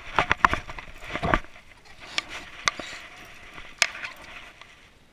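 Sharp knocks and rattles as a fish in a rubber-mesh landing net is brought aboard a skiff, the net and flopping fish knocking against the boat. A quick cluster of knocks in the first second and a half, then a few single sharp clicks.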